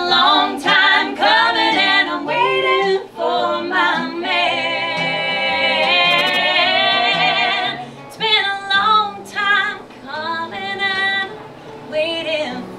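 A woman singing wordless vocal runs over musical accompaniment, with a long held note sung with vibrato near the middle, then shorter phrases.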